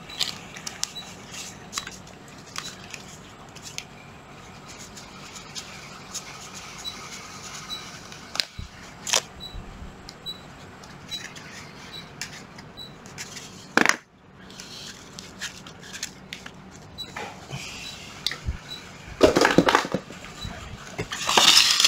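Handling noise: scattered clicks and knocks of tools being moved and set down, over a low background, with a louder rustle near the end.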